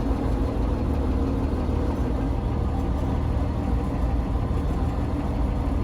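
1956 Dodge Town Panel's engine running steadily with a low, even rumble.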